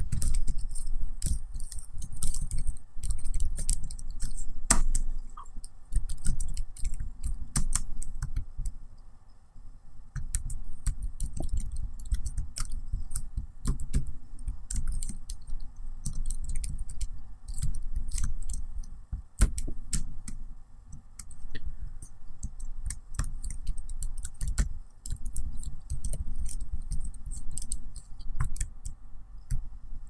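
Continuous typing on a laptop keyboard: a dense, irregular run of key clicks with brief lulls.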